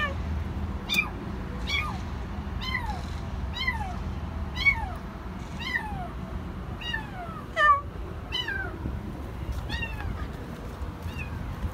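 Kitten meowing loudly and over and over, about one call a second, each call falling in pitch: the distress calls of a scared kitten trapped in a car's underside.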